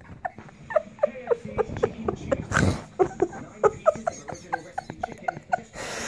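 A small puppy yapping in a quick run of short, high yips as it plays rough, with a thump about two and a half seconds in; a child laughs.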